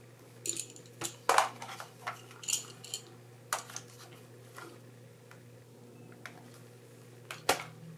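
Hard plastic clicking and rattling as the opened Nikon SB-900 flash body and its detached hot-shoe foot assembly are handled: about a dozen scattered clicks and short scrapes, the loudest about a second in and near the end.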